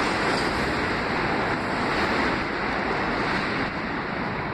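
R160B subway train pulling away into the tunnel: a steady rushing rumble of steel wheels on rail that slowly fades.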